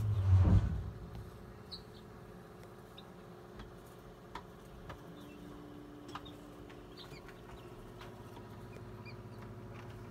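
Newly hatched chicks peeping faintly inside an incubator, with short high peeps scattered through, over the incubator's steady low hum. A low bump of handling comes in the first second.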